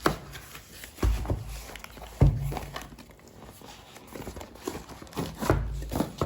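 A smartphone's cardboard retail box being handled for unboxing: a few knocks and low thumps, about a second in, a little after two seconds and again near the end, with light rustling in between.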